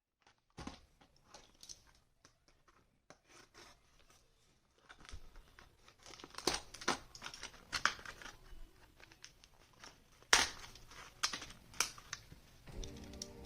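Packaging being handled and torn open: crinkling plastic and tearing card, with irregular crackles and sharp snaps, the loudest about ten seconds in. Music starts right at the end.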